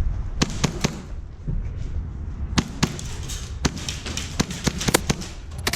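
Scattered sharp snaps and knocks of an airsoft skirmish, about a dozen at uneven intervals, some in quick pairs, over a steady low rumble.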